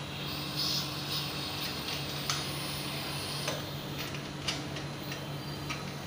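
Steady low hum of a running split air conditioner outdoor unit. Over it come short hisses of refrigerant gas at the service valve and several sharp metallic clicks as the brass fitting is handled.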